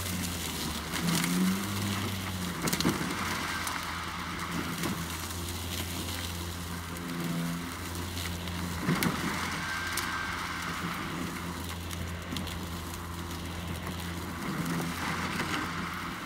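Ryobi 40-volt battery lawn mower running with a steady hum, its blade cutting through thick ditch weeds with scattered clicks and crackles. The hum dips briefly about seven seconds in and again around eleven seconds.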